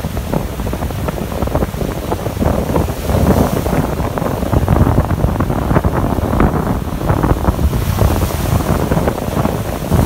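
Rough surf breaking and washing up a sandy beach, a continuous surging hiss of foaming water, with strong wind buffeting the microphone.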